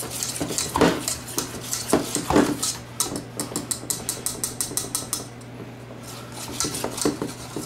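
Wire whisk beating powdered-sugar chocolate icing in a stainless steel saucepan, its wires clinking and scraping against the pan's sides and bottom, with a quick run of rapid clinks about three seconds in and a quieter stretch after.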